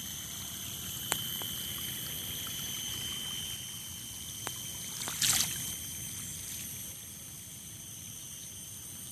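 Floodwater trickling and running in a steady low wash under a constant high-pitched whine. A short, sharp sound stands out about five seconds in, with a few faint ticks around it.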